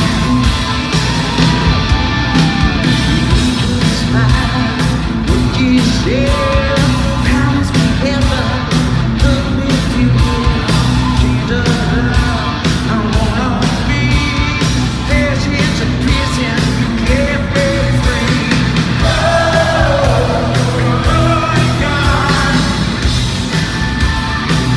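Live rock band playing loud, with a male lead singer over distorted electric guitars, bass and a steady drum beat.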